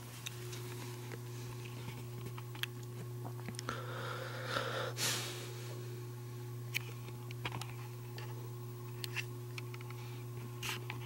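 Winnower ceiling fan running: a steady motor hum with scattered light clicks and ticks, and a short rustling noise about four to five seconds in.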